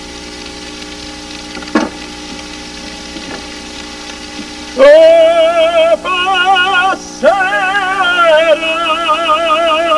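Vegetables frying in stainless-steel pans, a low steady sizzle. About five seconds in, a man starts singing loudly in Italian with a wide vibrato, pausing for breath and going on, and the singing drowns out the frying.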